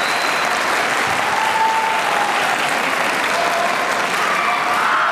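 Crowd applauding steadily in a large gymnasium, for a point awarded by the referees' raised flags in a kendo match.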